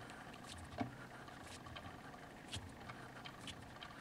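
Hand reamer being turned in the muzzle of a Tokyo Marui MP5 airsoft inner barrel, cutting a crown: faint, irregular scrapes and clicks of the cutter on the metal, about one or two a second, with a low knock about a second in.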